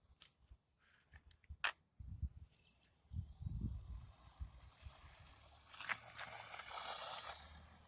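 A 1/20 RC truck's brushed 180 electric motor and gears whining at high pitch, with tyre noise, swelling as the truck runs close by about six seconds in and then fading. Before that come a sharp click and some low rumbles.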